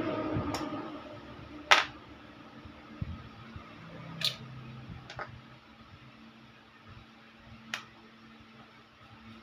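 Several separate sharp clicks and taps, the loudest about two seconds in, from hands handling small hard objects, over a faint steady hum.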